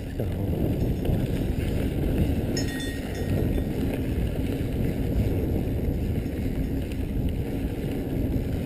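Santa Cruz Tallboy 29er mountain bike riding fast down a dry dirt trail: a steady rush of wind over the camera microphone mixed with the tyres rolling over dirt and the bike rattling.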